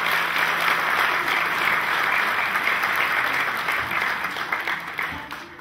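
Audience applauding at the end of a song, the clapping dying away near the end.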